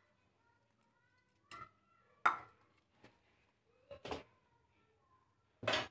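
An aluminium cake tin is knocked about four times as flour is shaken around its greased inside to dust it. Each knock is sharp with a short ring, and the second is the loudest.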